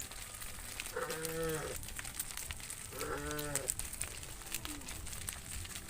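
Cattle mooing: two short calls about two seconds apart, with a fainter call after them.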